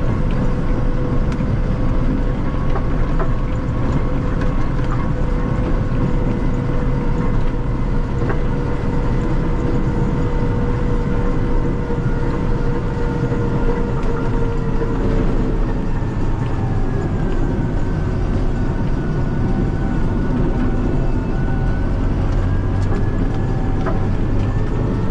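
Massey Ferguson 5445 tractor's 4.4-litre Perkins common-rail diesel running steadily while plowing snow, with a whine that sags in pitch about two-thirds of the way through and rises again near the end.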